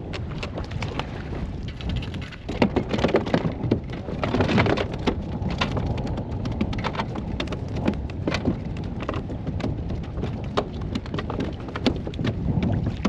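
Choppy water splashing and slapping irregularly against a kayak, over a steady rumble of wind buffeting the microphone. The splashes come thickest a few seconds in.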